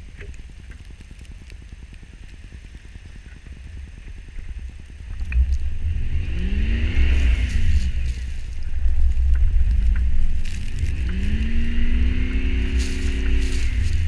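Chevrolet Avalanche V8 with a Dynomax Bullet exhaust, rumbling at low revs, then revved hard from about five seconds in: one rise and fall, then a second climb that holds high to the end, as the wheel spins and throws snow.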